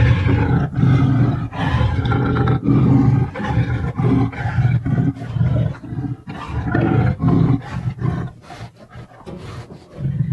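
Cartoon-style lion roar sound effect: a long run of deep, pulsing roars that grow quieter in the second half.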